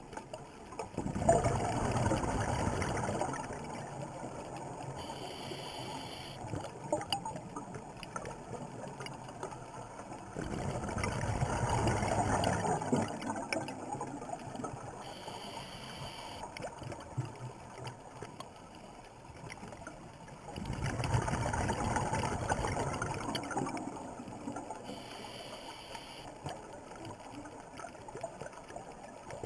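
A scuba diver breathing through a regulator, heard underwater: three long, bubbling exhalations about ten seconds apart, each followed a few seconds later by a short, thin hiss of inhaled air through the regulator.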